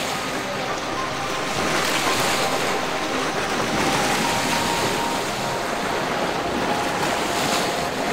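Steady rush of wind on the microphone mixed with river water lapping, with no sudden sounds.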